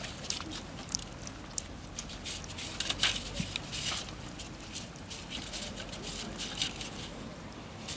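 Puppies lapping and licking at a plastic plate: quick, irregular wet smacking clicks, busiest about halfway through.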